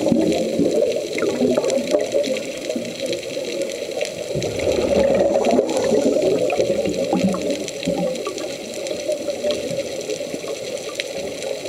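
Scuba diver's exhaled air bubbling from the regulator, heard underwater: a gurgling, bubbling rush that swells with each breath out, about every five to six seconds, and eases between breaths.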